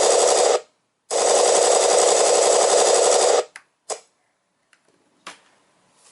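Simulated machine-gun fire from an electronic RC sound effects unit: a burst that stops about half a second in, then a second burst of just over two seconds, followed by a few short clicks.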